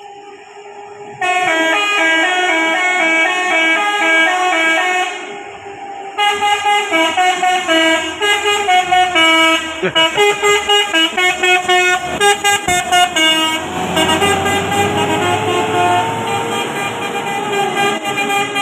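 Bus telolet basuri musical horn playing a quick melody of stepping notes, which gets much louder about a second in and breaks into a fast stuttering run in the middle. Near the end a sliding note rises and then falls over a low rumble.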